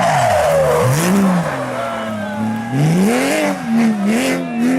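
Porsche rally car engine revving hard, its note dropping sharply at the start and then climbing and falling again several times as it is driven on and off the throttle.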